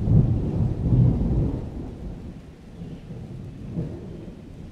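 Thunder rumbling from an approaching thunderstorm: a deep rolling peal, loudest in the first second and a half, that dies away into a low rumble, with a brief swell near the end.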